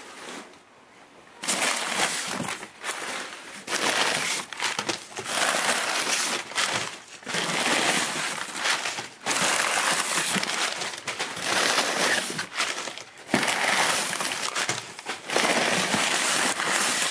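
Crumpled newspaper packing and bubble wrap rustling and crinkling as hands dig through them in a cardboard box, in irregular bursts starting about a second and a half in.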